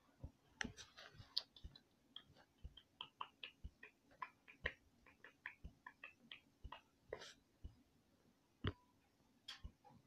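Faint, irregular small clicks and taps, several a second, over a faint steady low hum.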